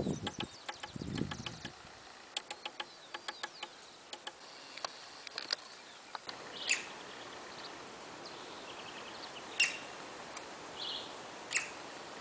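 Wetland ambience: scattered sharp clicks and ticks for about the first six seconds, with a low thud near the start. Then, over a steady background hiss, birds give three short, sharp chirps and a couple of brief trills.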